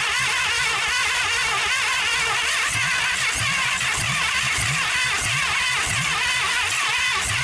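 A 1956 Packard 374 V8 being cranked over by its starter motor: a steady starter whir with even, repeating low chugs from the engine turning, and the engine does not catch and run.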